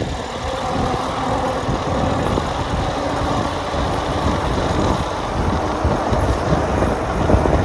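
A vehicle driving on a tarmac road: a steady rush of road and wind noise that holds even throughout.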